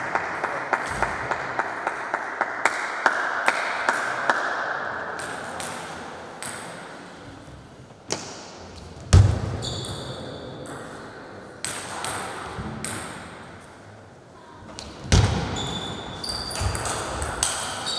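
Table tennis ball clicking in a run of quick, even bounces for the first few seconds, then single taps and knocks. Two loud thuds come about halfway and near the end, with short squeaks as play resumes.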